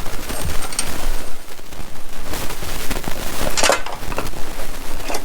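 Irregular clicks, small knocks and scrapes of a screwdriver and metal parts being handled, with a sharper scrape about three and a half seconds in.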